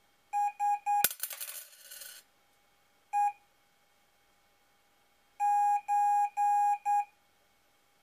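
Morse-style beeps from an Arduino microcontroller's mini speaker, one buzzy pitch keyed in short and long tones: three short beeps, a single short one, then three long and one short near the end. About a second in, a sharp click and a second of clattering noise cut across the tones, the kind of background noise that can corrupt the transmission.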